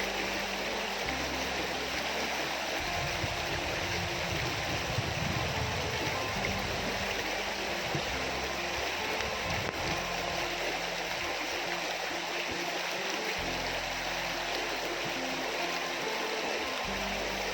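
Steady rushing of a small river's water, with background music carrying a low bass line that changes every second or two.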